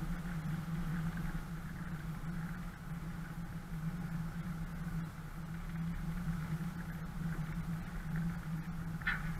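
A 4x4's engine running steadily at low revs as the vehicle crawls along a rough dirt track. A short, high squeak sounds near the end.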